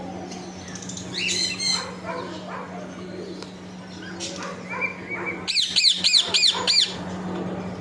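Pet parrot chirping and chattering: a short burst of high chirps about a second in, then a quick run of about seven high, arching chirps near the end, over a steady low hum.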